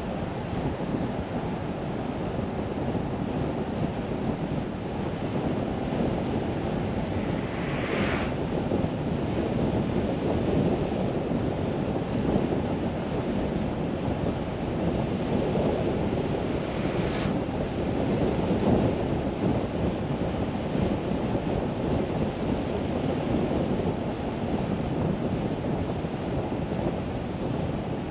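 Steady road rumble and wind noise of a car driving along, with two short hisses, one about a third of the way in and one a little past halfway.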